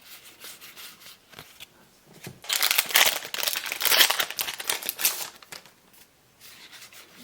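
A trading-card booster pack wrapper being torn open and crinkled, loud and crackling for about three seconds in the middle, with lighter rustling and clicks before and after.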